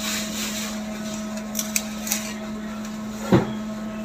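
Steel tongs clicking and scraping against a large aluminium stock pot as a braised beef strip loin is turned, with a few light clicks and one louder knock about three seconds in, over a steady low hum.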